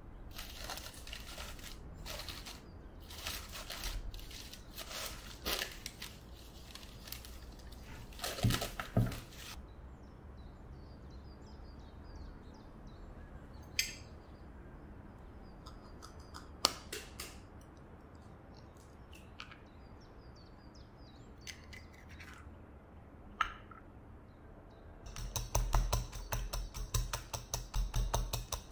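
A cotton kitchen towel rustling as it is spread over a baking dish. Then a few sharp taps as an egg is cracked. Near the end comes a rapid clinking of a metal fork beating egg yolk and milk in a glass bowl, the loudest part.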